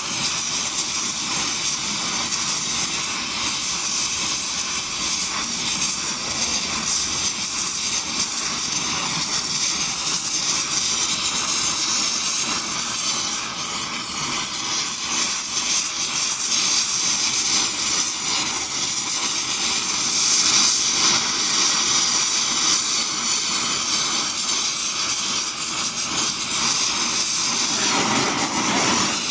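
Blowtorch flame burning with a steady, loud hiss as it heats steel for forging.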